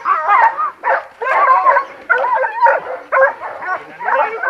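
Boar-hunting dogs barking and yelping in quick repeated calls, about two a second, as they are let off the leash.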